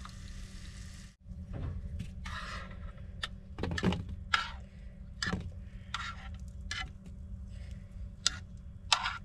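Metal ladle clinking and scraping against a nonstick frying pan in a string of separate knocks as steak and peppers in sauce are spooned out, over a steady low hum. Steak frying in the pan is heard for about the first second.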